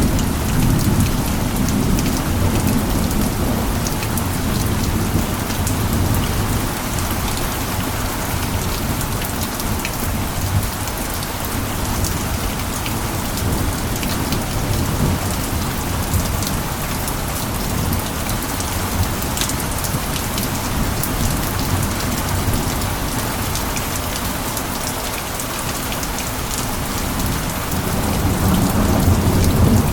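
Steady heavy rain falling, with many fine drop ticks over a dense hiss. A low rumble of distant thunder eases off in the first seconds and swells again near the end.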